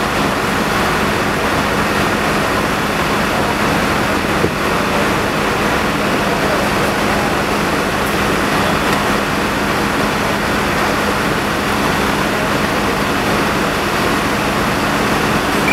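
Fire apparatus engines and pumps running steadily at the fireground: a constant drone with a steady low hum.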